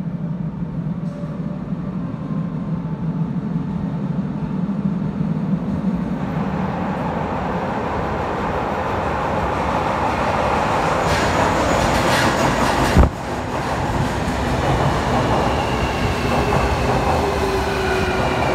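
JR Kyushu 305 series electric train approaching through a subway tunnel and running into the station. The rumble of its wheels on the rails builds up over the first half, with a single sharp knock about two-thirds of the way through. After that, a whine falling in pitch as the train slows alongside the platform.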